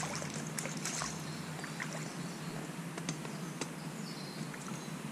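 Light clicks and rustles of a fishing rod and reel being handled while a perch is brought in, over a steady hiss of outdoor water ambience.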